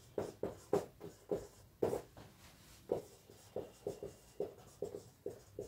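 Marker pen writing on a whiteboard: a quick series of short, separate strokes, about three a second.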